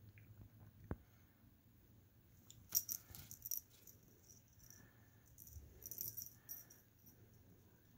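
Faint rattling and rustling of a wand cat toy's streamers as a cat bats and chews at it, in two short flurries of quick crisp clicks about three and six seconds in, after a single soft knock about a second in.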